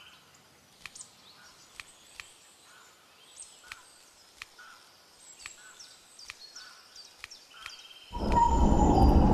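Quiet garden ambience with birds chirping and irregular footsteps on stone steps. About a second before the end, a loud rushing noise starts abruptly.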